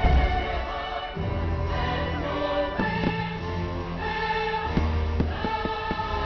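Fireworks show soundtrack of choir singing over orchestral music, with several sharp firework bangs and low booms partway through.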